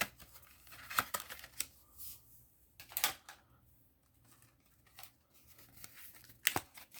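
Scattered clicks and rustles of paper card packs and packaging being handled, a handful of sharp taps with quiet gaps between.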